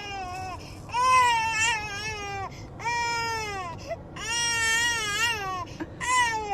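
A dog whining in long, high, crying wails that fall in pitch, about four of them with short breaks between, and another starting near the end.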